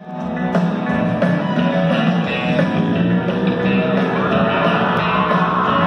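Live country band playing through an arena's PA system, electric guitars prominent over a steady beat, heard from the audience seats in a large hall.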